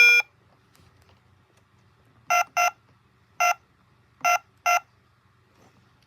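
Electronic button beeps from a toy ATM as its keys are pressed. There is one lower beep at the start, then five short, higher beeps, some in quick pairs and some single.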